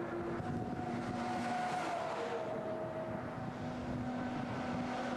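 Diesel articulated trucks on a motorway: a steady engine drone with tyre noise, the engine note dipping slightly about two seconds in as a truck goes by.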